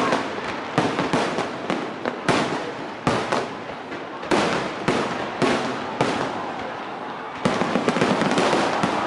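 Fireworks display: a quick run of sharp bangs from bursting shells over continuous crackling, several reports a second, getting louder about seven and a half seconds in.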